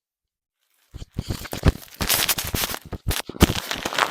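Plastic packaging crinkling and rustling, a loud, dense run of sharp crackles starting about a second in.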